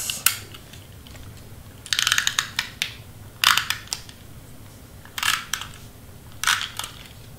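Double-sided tape runner drawn across cardstock in about five short, scratchy strokes, the one about two seconds in the longest, with a fine ratcheting tick.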